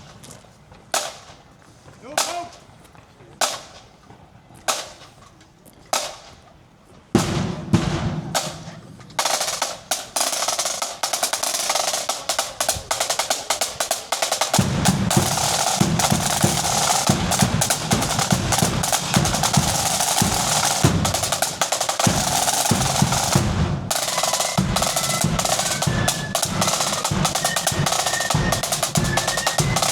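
Marching flute band striking up: a drummer's sticks click out the time about once a second, then the snare drums roll in and the bass drum joins about halfway, and near the end the flutes come in with the tune over the drumming.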